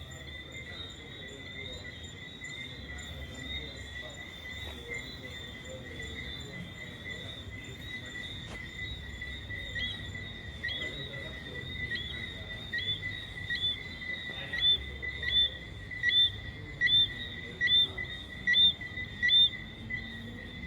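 Night insect chorus: a steady high-pitched trilling that runs on without a break. From about halfway, a second caller joins with short high chirps repeating roughly every three-quarters of a second, growing louder toward the end.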